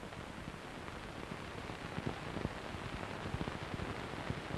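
Steady hiss with many faint, scattered crackles and pops and no pitched sound: the background noise of an old recording between lines of narration.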